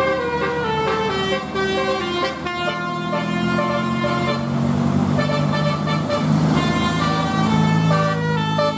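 Bus telolet horn, a set of multi-tone air horns playing a quick tune in stepped notes, several tones sounding together, over a low steady hum.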